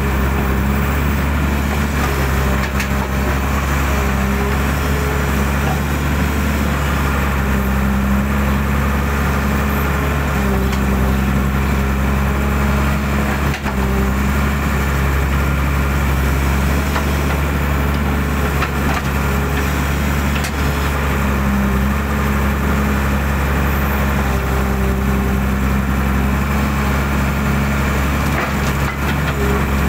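Hydraulic excavator running steadily under work, its diesel engine holding a low drone while a higher hum comes and goes in stretches of a few seconds as the machine works.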